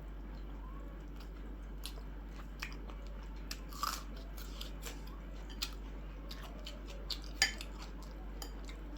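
Close-up eating sounds: a person chewing a meal of rice and curry, with scattered short smacks and clicks, the loudest about four and seven and a half seconds in, over a steady low hum.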